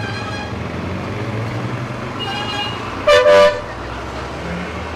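Street traffic with a steady engine rumble, and a vehicle horn honking loudly about three seconds in, just after a fainter, higher tone.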